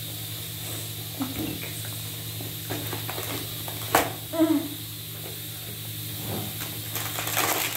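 Plastic shrink-wrap and a cardboard toy box being torn open and handled: crinkling and rustling, with a sharp snap about four seconds in and more crackling near the end. A steady low hum runs underneath.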